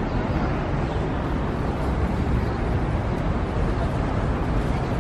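Steady outdoor city noise: a low rumble of wind on the microphone mixed with traffic.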